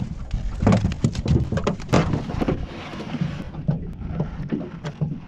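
A quick string of knocks and clatters, densest in the first couple of seconds and thinning out after, over a low wind rumble on the microphone aboard a small fishing boat.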